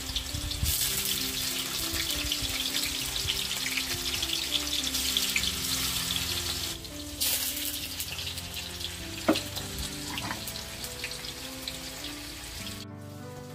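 Hot oil sizzling and crackling in a frying pan, breaking off briefly about halfway and stopping near the end, under soft background music of slow stepped notes.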